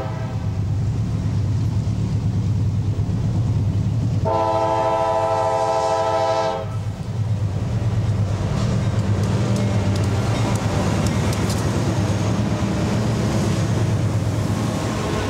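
Diesel freight locomotive air horn: one blast cuts off right at the start, then a second blast of about two seconds a few seconds in, over the steady rumble of the diesel engine. After the horn, the rolling clatter of the train's wheels on the rails builds as the train gets moving.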